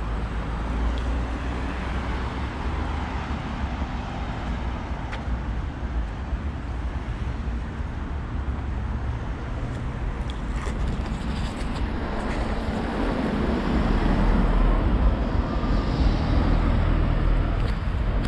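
Road traffic on a city street: a steady rumble of passing cars, growing louder over the last few seconds as a vehicle comes closer.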